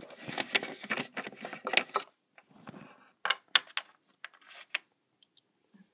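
Small plastic toy figures and playset pieces clicking and knocking as they are handled, close to the microphone: a dense clatter for about two seconds, then a few sharp separate clicks.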